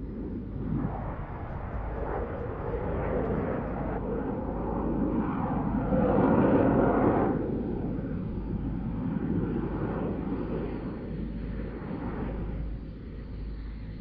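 Dassault Rafale's twin Snecma M88 turbofans during a slow-speed pass: a jet rumble that swells to its loudest about halfway through, then eases off.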